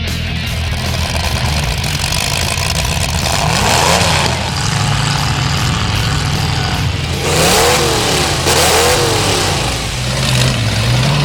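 Demolition derby car engines running and being revved, with a few quick revs rising and falling in pitch about seven to nine seconds in.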